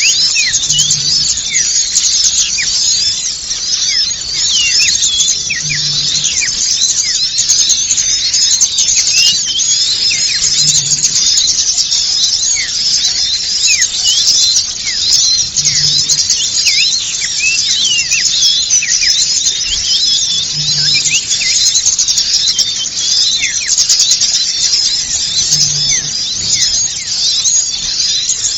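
Bird-lure recording: a dense, noisy chorus of many small birds chattering, with rapid overlapping high chirps and squeaky sweeping calls.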